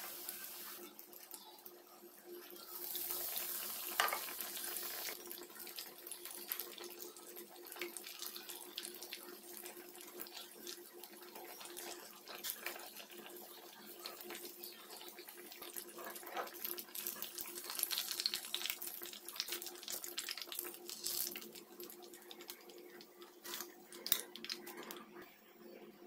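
Bread pakora, slices of batter-coated bread, shallow-frying in hot oil in a nonstick pan with a steady sizzle. Scattered clicks and scrapes come from a metal slotted spoon turning the pieces against the pan, over a faint steady low hum.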